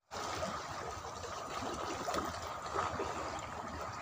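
Shallow seawater trickling and lapping among shoreline rocks, a steady wash with small splashes.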